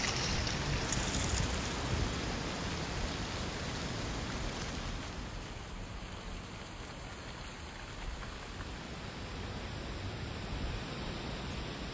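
Wind blowing through autumn trees, with dry leaves rustling in the branches and on the ground; a gust eases about five seconds in.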